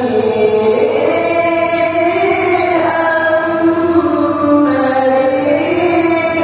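A male qari reciting the Quran in the melodic tilawah style: a high voice holding long notes that slide slowly up and down in one unbroken phrase.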